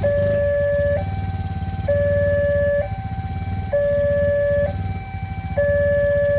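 Railway level-crossing warning alarm sounding a two-tone electronic siren, stepping between a lower and a higher tone about once a second, with a low rumble underneath.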